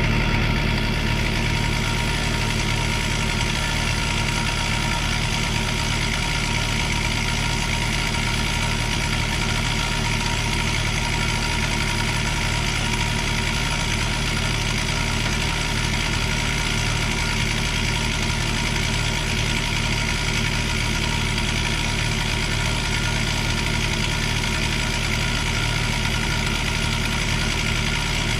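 Diesel engine of a piece of earthmoving equipment, such as a skid steer or mini excavator, running steadily at a constant speed with no revving.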